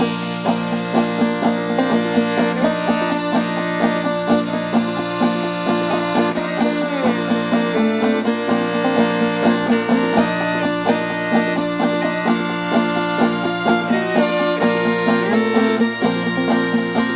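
Old-time music led by a clawhammer banjo picking a steady tune, with other string instruments playing along and some notes sliding in pitch.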